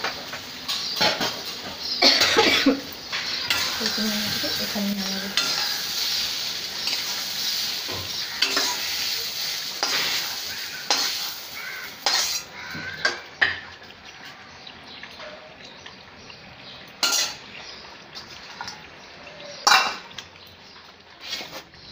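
Stirring in a karai of frying taro-leaf greens: a utensil clinks and scrapes against the metal pan over a sizzling hiss. The sizzle fades out about halfway through, leaving scattered clinks and knocks.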